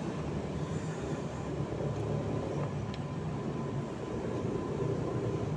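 Steady low mechanical rumble, like an engine running nearby.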